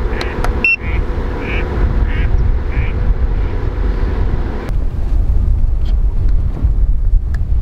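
Outdoor ambience dominated by a low rumble of wind on the microphone, with short animal calls repeating about every half second over the first three seconds and a brief high beep about a second in.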